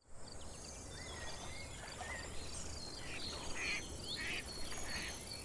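Outdoor chorus of wild birds calling, with whistled glides and brief harsh calls. Under them, high short chirps repeat evenly like an insect trill, over a low steady hum.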